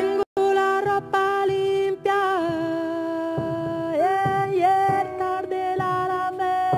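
A woman singing long wordless held notes with slow pitch slides, over soft mallet strikes on the bass strings inside a grand piano. The sound cuts out for an instant near the start.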